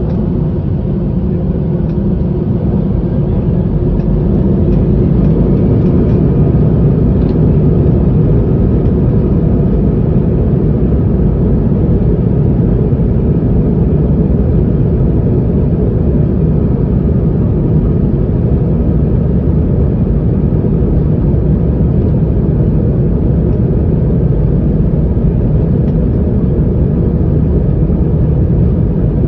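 Airbus A320's jet engines spooling up to takeoff thrust, heard from inside the cabin over the wing, with the deep rumble of the aircraft rolling down the runway. A faint rising whine and growing loudness over the first few seconds give way to a steady, loud noise as it accelerates.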